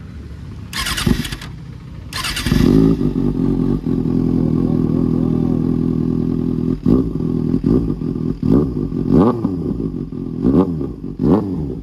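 Kawasaki ZX-6R inline-four running through an IXIL slip-on exhaust with its dB killer removed. It settles into a steady idle about two and a half seconds in. It is then given about six short throttle blips, each rising and falling in pitch. The exhaust is very loud.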